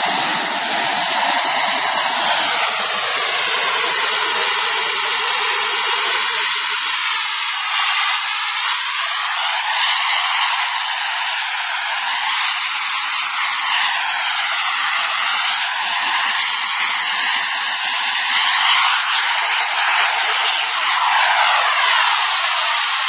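Radio-controlled model jet's engine running with a steady, high rushing hiss. A phasing sweep rises and falls through it as the model hovers tail-down and moves about close to the ground.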